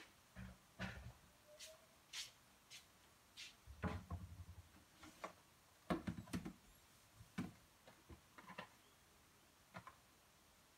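Faint, scattered clicks and a few dull knocks, the strongest about four and six seconds in.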